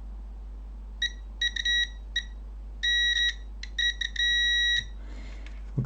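Multimeter continuity tester beeping in short, broken bursts with a couple of longer steady tones as the probes sit on circuit-board connections: an intermittent connection, which the repairer takes for a possible cold solder joint.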